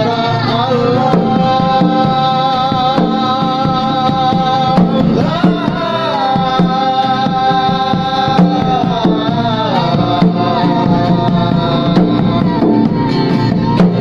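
Music: a slow song with a long held melody line that slides between notes, over a steady drum and percussion beat.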